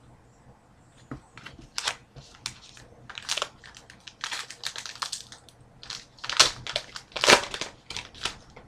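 Trading-card pack wrapper crinkling as it is handled and opened, a run of irregular crackles, loudest about six and a half and seven and a half seconds in.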